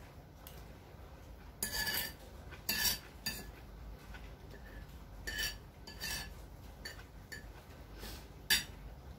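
Cutlery scraping and clinking against a plate while eating: a string of short, separate scrapes and clinks, the sharpest a single clink near the end.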